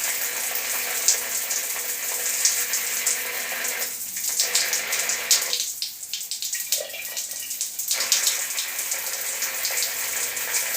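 Shower water running, a steady spraying hiss with spatter, dipping briefly twice in the middle. No whistle from the faulty valve is heard yet.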